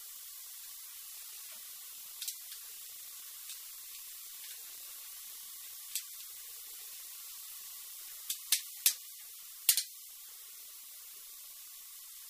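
Sharp plastic clicks and ticks from the gearbox of a LEGO Technic 8053 Mobile Crane being worked by hand, with a knob turned and levers pushed. A few come singly, then a quick cluster of about five a little past the middle, all over a steady high hiss.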